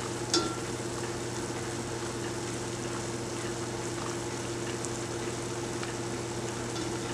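Zeppole dough fritters deep-frying in hot vegetable oil: a steady sizzle of bubbling oil, with a low steady hum underneath and one light click about a third of a second in.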